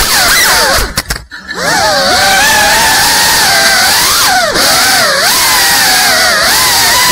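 GEPRC Cinelog 35 cinewhoop's brushless motors and ducted propellers whining loudly, the pitch rising and falling with throttle. About a second in the sound almost drops out for half a second as the throttle is cut for a flip, then comes back, and it dips briefly again later.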